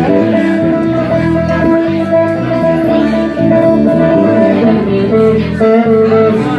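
A live bar band playing, led by electric guitar.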